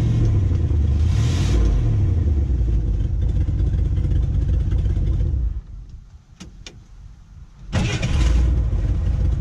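Old Ford pickup's engine running with a brief rev about a second in, then it cuts out about five and a half seconds in. Two sharp clicks follow, and it starts and runs again near the eight-second mark.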